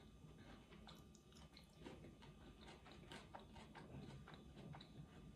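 Faint chewing of a mouthful of stewed potato and chanterelle mushrooms, heard as scattered small soft clicks barely above silence.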